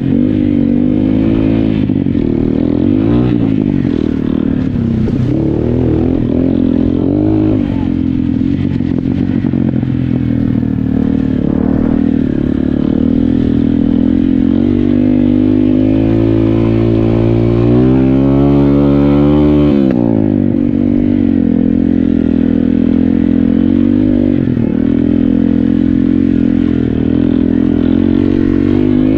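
Dirt bike engines revving up and down with the throttle over rough ground. About two-thirds of the way in, one engine climbs steadily in pitch for a couple of seconds, then drops off sharply.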